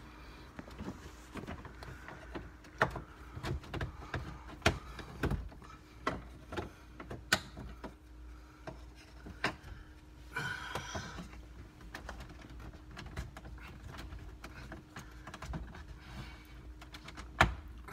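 Plastic dashboard trim beside the steering column being pried loose with a plastic trim tool: scattered sharp clicks and knocks from the tight retaining clips and panel, with a brief scraping rustle about ten seconds in.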